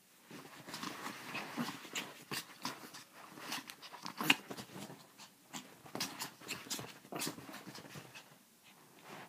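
A chihuahua snarling in a rapid, irregular string of short, sharp outbursts as it attacks a dark cloth dangled over it. The noise stops about a second before the end.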